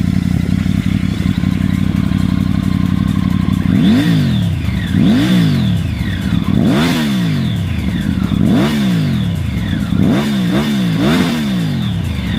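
Triumph Tiger 900's three-cylinder engine through an aftermarket exhaust, idling steadily for about four seconds. It is then revved in about seven throttle blips, each rising and falling in pitch, the last three in quick succession.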